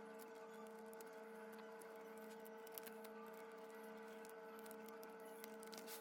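Near silence: a faint steady electrical hum with a few faint light clicks.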